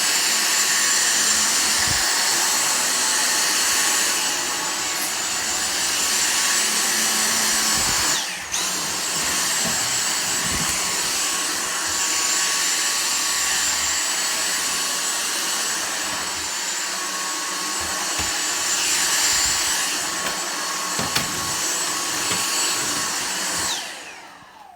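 Dyson V6 cordless stick vacuum running on a rug: a steady high-pitched motor whine over rushing airflow. It cuts out briefly about eight seconds in and starts again, then winds down near the end.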